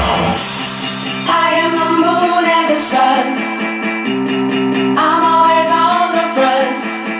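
Pop-rock song with a singer over guitar chords; the drums and bass drop out just after the start, leaving voice and guitar.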